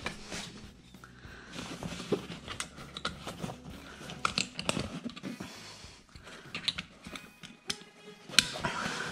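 Nylon webbing strap being pulled tight through a plastic buckle on a fabric bike travel bag, with fabric rustling and irregular small clicks and ticks from the buckle.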